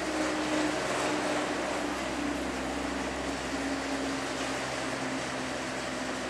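Poma 8-seat detachable gondola lift's station machinery and hauling cable running over the sheave assembly: a steady mechanical hum with a faint tone that slowly falls in pitch.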